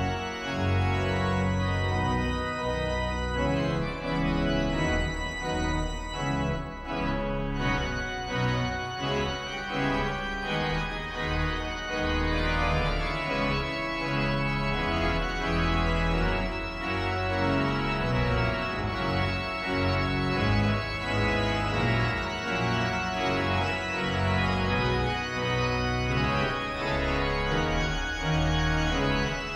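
Pipe organ playing a hymn arrangement with full, sustained chords that change every second or so.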